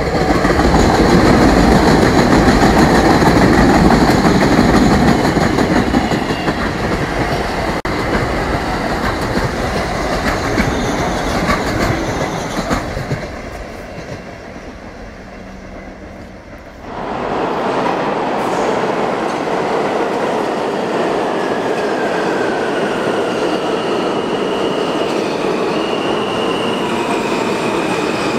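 An R160 subway train running past at speed with a loud, steady rumble of wheels on rail that fades away after about thirteen seconds. Then another subway train sounds in an underground station, its whine falling steadily in pitch as it slows, with high squealing tones near the end.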